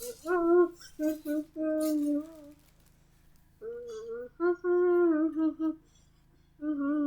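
A child humming a wordless tune in three short phrases of held, gliding notes, with pauses between them.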